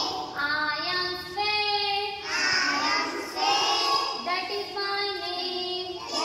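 A group of young children singing a rhyme together in phrases of held notes.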